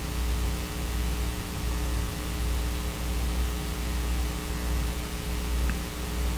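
Steady low mains hum with a hiss over it, the electrical background noise of the recording.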